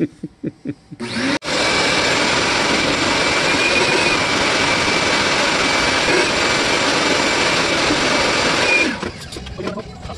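Vacuum cleaner starting up about a second in and running steadily with a thin high whistle, sucking up small debris, then cutting off near the end. A few light knocks come just before it starts.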